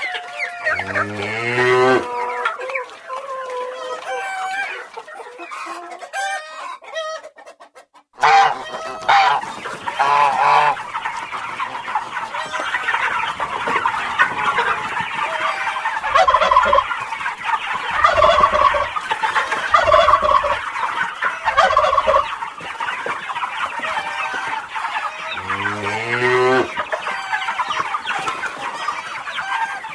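Chickens clucking, with a rooster crowing near the start and again near the end. The sound drops out briefly about eight seconds in, after which a flock of hens clucks steadily.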